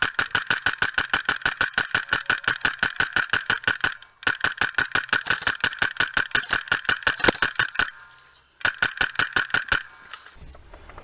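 Airsoft gun firing on full auto, about a dozen shots a second, in three long bursts: about four seconds, a brief pause, nearly four seconds more, then a short burst of about a second.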